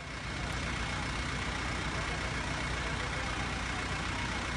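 Steady rushing of fast-flowing floodwater, an even wash of noise with a constant low rumble underneath.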